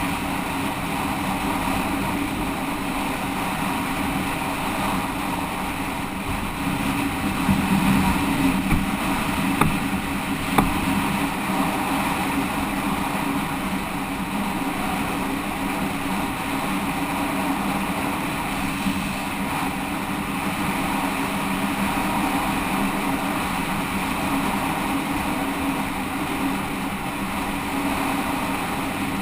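Motorcycle engine running steadily while riding, with wind rushing over the microphone. The engine swells a little about seven to nine seconds in, and there are a couple of sharp clicks around ten seconds in.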